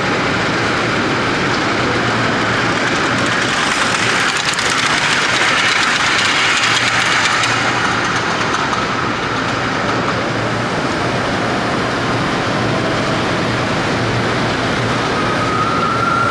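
Miniature live-steam locomotives running past, a hiss that swells about four seconds in and fades by about eight, over a steady hum.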